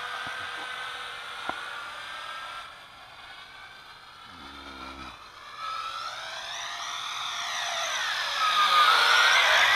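JJRC H26 toy quadcopter's motors and propellers whining high, the pitch swooping up and down with the throttle as it is flown in. It fades in the middle, then grows louder toward the end as it comes close.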